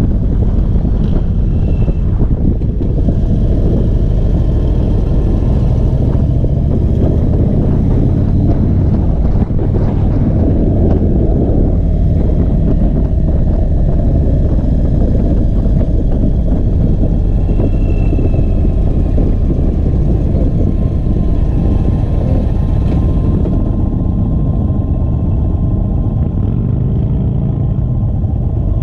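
2021 Indian Chief Bobber's V-twin engine running under way, with wind rushing over the microphone. About two-thirds of the way through the wind eases and the engine note dips and rises as the bike slows.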